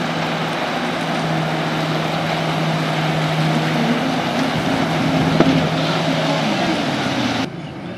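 Motorboat engine running steadily under a loud rush of water and wind; about six and a half seconds in the engine note drops. One sharp click a little past the middle, and near the end the sound cuts abruptly to a quieter background.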